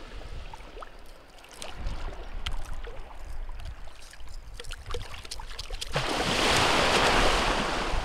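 Light water sloshing and wind rumble. About six seconds in, a sudden loud rush of splashing water lasts about two seconds as a released blacktip shark kicks its tail and bolts off through the shallows.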